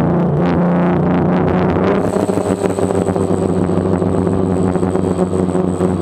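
Music, then about two seconds in the steady sound of a DJI Phantom quadcopter's electric motors and propellers in flight, a constant drone with a high thin whine on top.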